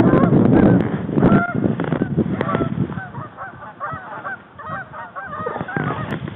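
A flock of Canada geese honking: many short, overlapping honks that grow thicker after the first couple of seconds. The opening second or so is covered by a loud rush of wind or movement noise.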